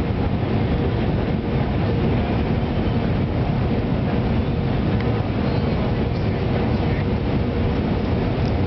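Steady cabin noise of an Airbus A319 airliner on approach: engine and airflow noise, heaviest in the low end, with a faint steady tone underneath.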